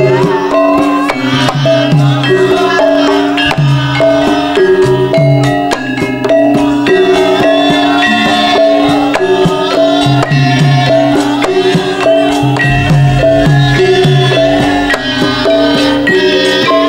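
Javanese gamelan music for a lengger dance: metal-keyed instruments ring out a repeating melody over hand-drum strokes.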